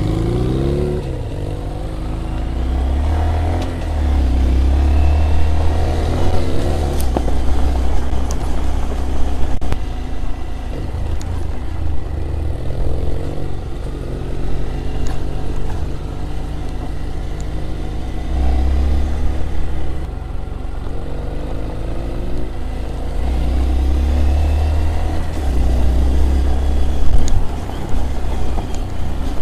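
Small Honda motorcycle engine running under way. Its pitch climbs and drops repeatedly as the throttle opens and closes and the gears change.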